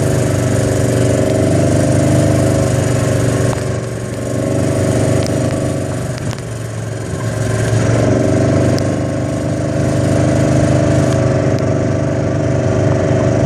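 Motor vehicle engine running steadily at low speed. The note drops away between about four and eight seconds in, then comes back up.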